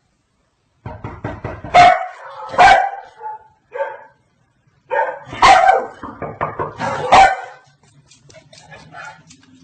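Dog barking: a run of short, sharp barks starting about a second in, then a second run of barks around five seconds in, fading to fainter sounds near the end.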